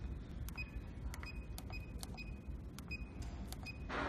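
Keys on a portable CNC plasma cutter's controller keypad being pressed in quick succession, each press a click, most with a short high beep, about three a second over a low steady hum. A brief rush of noise near the end.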